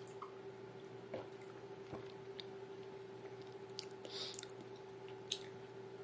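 Wet mouth and throat sounds of a person gulping a drink poured from a bottle straight into their open mouth: a few scattered squishy clicks and a brief hiss about four seconds in, over a steady faint hum.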